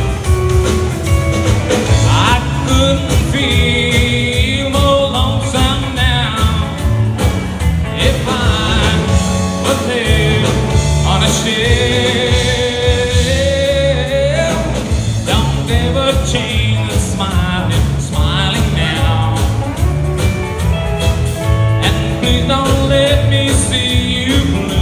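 Live band playing a song with drums, electric guitars, bass guitar and acoustic guitar, and a lead vocal, with a steady beat.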